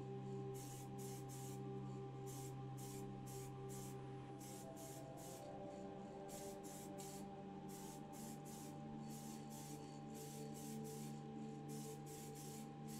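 Aerosol spray can of primer hissing in short, quick bursts, about two a second, as small diecast metal parts are primed. Soft, steady background music runs underneath.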